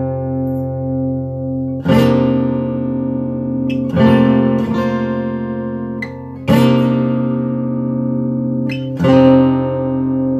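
2012 Guild D55 dreadnought acoustic guitar: four strummed chords, each struck sharply and left to ring for two to two and a half seconds before the next chord.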